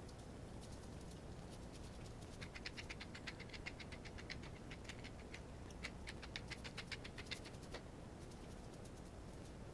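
Hand-turned pepper mill grinding, two spells of rapid clicking, about nine clicks a second: the first about two and a half seconds in, the second about six seconds in.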